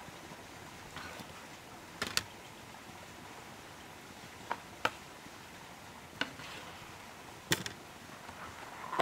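Large kitchen knife cutting through produce and knocking on a wooden cutting board: single sharp knocks at irregular gaps of a second or two.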